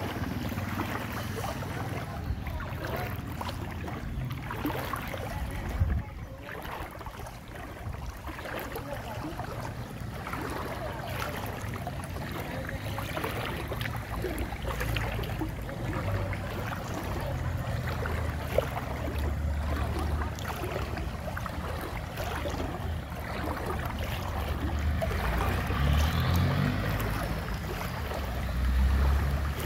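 Floodwater sloshing and splashing around someone wading through a flooded street, over a steady low rumble. It gets somewhat louder near the end.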